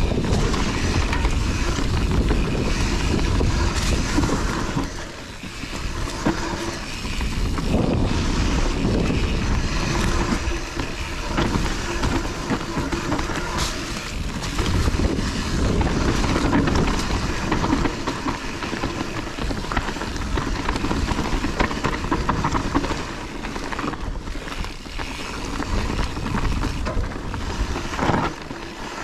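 Full-suspension mountain bike (Kona Process 153) ridden down a dirt trail: tyres rumbling over dirt and roots, the bike rattling over bumps, and wind buffeting a chest-mounted microphone. The noise dips briefly several times as the terrain or speed changes.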